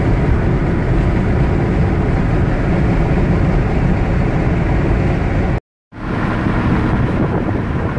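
Steady road and engine noise of a car driving at highway speed, heard inside the cabin. It cuts out for a moment a little before six seconds in, then resumes.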